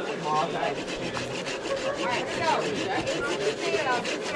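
Hand saw cutting through a dead tree branch in quick back-and-forth strokes: a steady rasp of the teeth through dry wood, with squeaky pitch glides as the blade moves.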